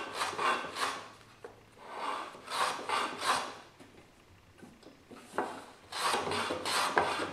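Hand plane shooting end grain on a shooting board: runs of short, rasping cutting strokes as the plane is pushed back and forth, with a pause of about a second and a half in the middle before the strokes start again.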